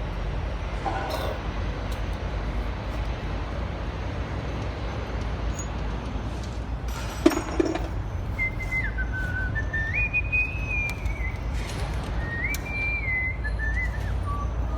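A person whistling a tune in held, stepping notes, starting about halfway through, over a steady low hum. A single sharp clink sounds shortly before the whistling begins.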